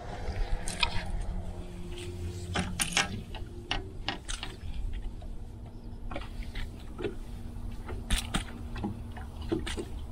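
Water lapping and slapping against a small fishing boat's hull, with a low rumble and scattered light clicks and knocks. A faint steady hum sets in about two and a half seconds in.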